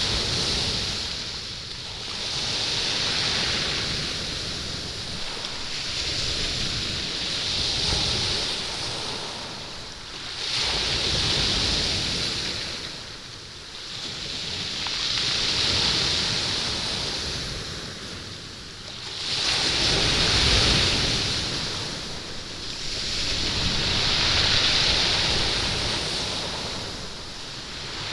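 Sea waves washing up a stone beach, the stones rolling and rattling in the surf. Each wash swells and falls away, about every four to five seconds.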